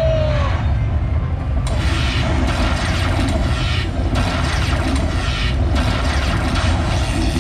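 Lightning Buffalo Link slot machine's bonus sound effects: a heavy low rumble with a run of crackling thunder-and-lightning strikes, about one a second, starting a little under two seconds in, as the lightning feature adds up the credit-prize wins.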